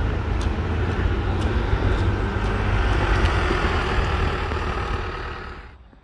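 Steady outdoor rumble with hiss, heaviest in the deep bass, with a few faint ticks. It fades away about five and a half seconds in.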